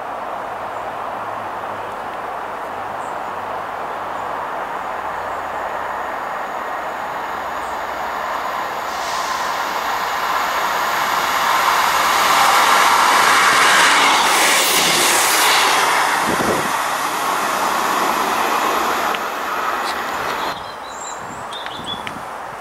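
Diesel train approaching along the line and running past. Its wheel and engine noise builds to a peak about two-thirds of the way through and eases off, then drops away abruptly near the end.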